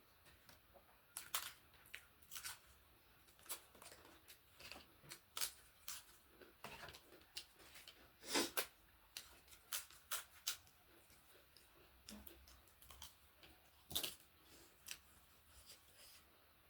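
Close-miked eating: scattered, irregular crisp crunches and clicks of someone chewing food, the loudest about eight and a half and fourteen seconds in.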